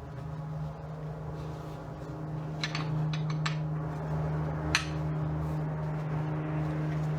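A steady low mechanical hum that grows a little louder, with a few sharp metallic clicks about halfway through.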